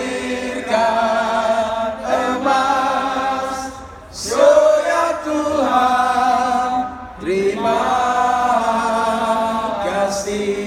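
A group of men and women singing a song together in long held notes, the phrases breaking briefly about four and seven seconds in.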